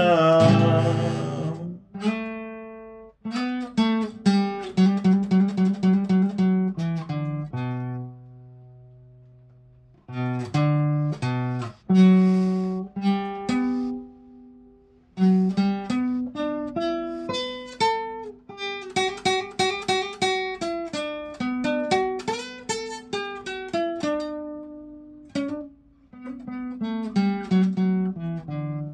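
Classical guitar played solo: a long run of picked single notes and arpeggios, twice easing off to let notes ring and die away before playing resumes.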